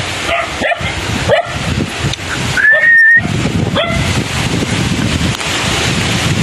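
A dog barking in short rising yips, four in all, with one longer high-pitched whine about three seconds in. Wind rumbles on the microphone underneath.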